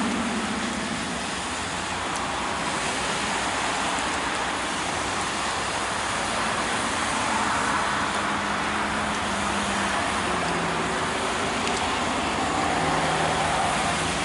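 Union Pacific diesel locomotives leading a double-stack container train as they approach, a steady engine rumble under a broad, even hiss.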